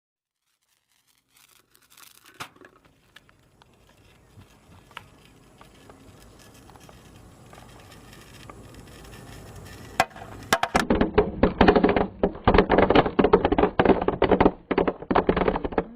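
Faint crackling and sputtering that slowly grows louder, as of a burning fuse, then about ten seconds in a string of firecrackers starts going off in rapid, continuous loud pops.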